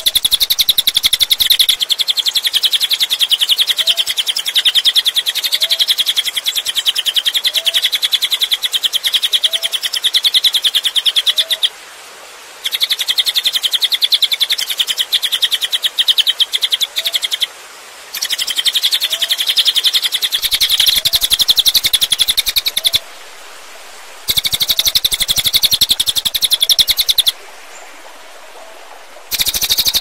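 Cililin bird singing: long runs of very rapid, sharp high notes, each run lasting several seconds, with brief pauses between runs. Soft lower chirps repeat about once a second behind the song in places.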